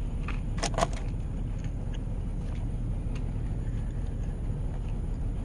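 Steady low rumble inside a vehicle's cabin, with a couple of short, sharp clicks in the first second.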